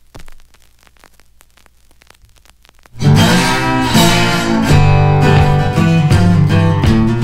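Faint scattered knocks and clicks, then, about three seconds in, loud strummed acoustic guitar music starts suddenly and dominates.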